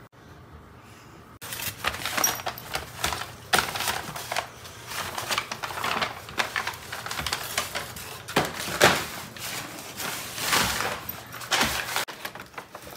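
Brown paper bag crackling, rustling and tearing as a boxer dog noses and paws into it, starting about a second and a half in.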